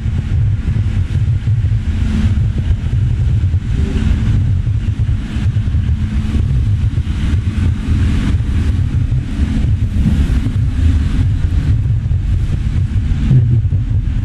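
Steady low rumble with a light hiss above it: wind and handling noise on a handheld microphone carried through a large supermarket hall.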